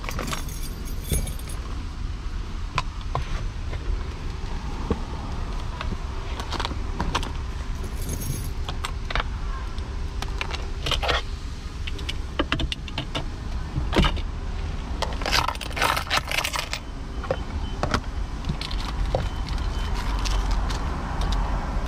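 Irregular clicks, clinks and rattles of small hard objects being handled, like keys jangling, over a steady low rumble.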